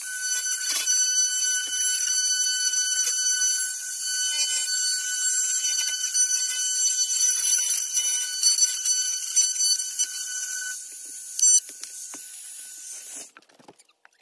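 Handheld wood router running with a steady high whine while routing out wood, with small knocks from the cut; the sound weakens about eleven seconds in and stops near the end.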